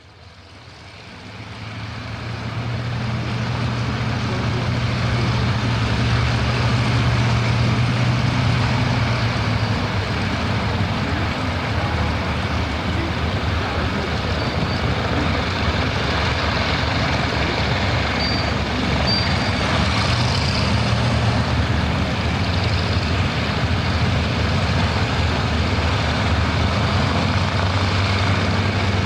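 Aircraft engines running as a steady, loud roar with a low hum, building up over the first few seconds and then holding.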